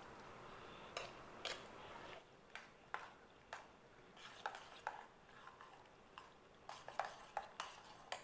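A spoon tapping and scraping against a mixing bowl in a dozen or so light, irregular clinks while ingredients are stirred together.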